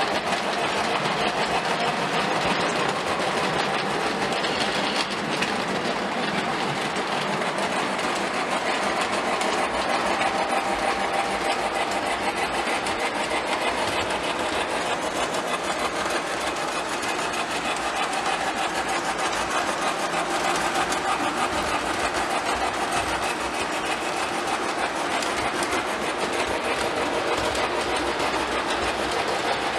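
Lionel O27 electric model trains running on three-rail track: a steady whir of the motors with the sound of metal wheels rolling over the rails, with no let-up.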